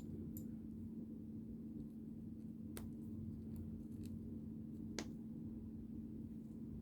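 A few faint, scattered clicks of plastic building bricks being handled and fitted, over a steady low hum.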